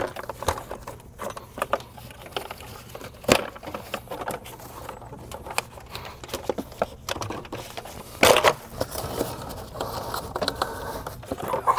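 Irregular clicks, taps and rustling of plastic intake parts and hoses being handled and unclipped in an engine bay. There is a sharper knock about three seconds in and a louder scraping rustle around eight seconds in.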